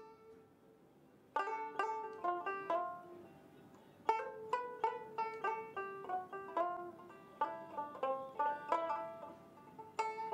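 Instrumental background music of quick plucked string notes. It pauses briefly at the start and picks up again about a second and a half in.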